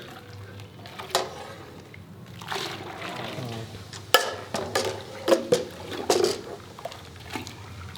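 Fresh milk being poured from a bucket into a measuring vessel, with several sharp knocks of the containers being handled.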